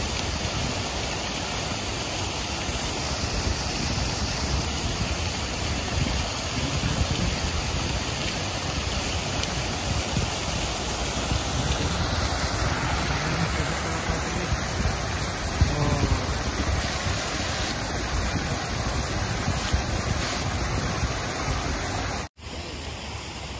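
Running water splashing, a steady rushing noise. It cuts off suddenly near the end and gives way to quieter background.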